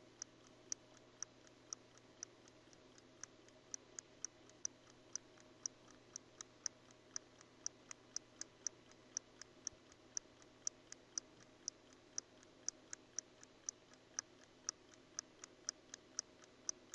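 Vintage pocket watch ticking steadily, about five ticks a second, some ticks louder than others; the owner suspects a slight extra tick in its beat. The ticking stops abruptly at the very end.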